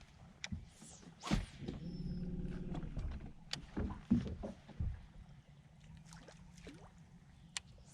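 Scattered knocks and clunks of handling gear aboard a small fishing boat, with a steady hum starting a little under two seconds in and lasting about a second and a half.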